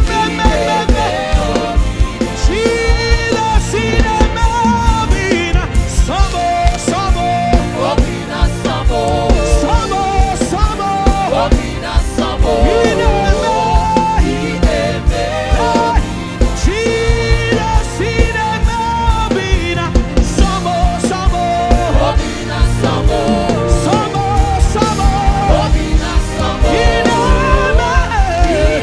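Live gospel band playing an upbeat praise song with singing over a steady drum beat.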